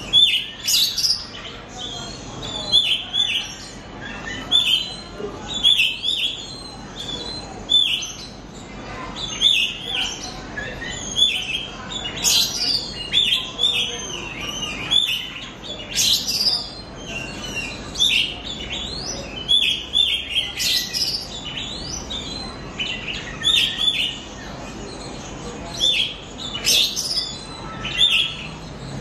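Oriental magpie-robin singing: short chirps repeated every second or so, now and then a higher rising whistle. It is a young bird still learning its song.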